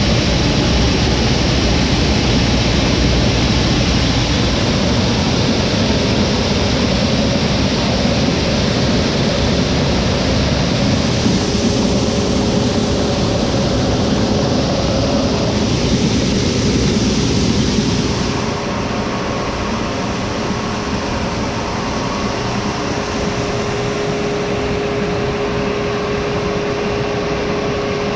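Heavy farm machinery running steadily, with a steady whine coming in partway through and the overall noise dropping slightly a little past the middle.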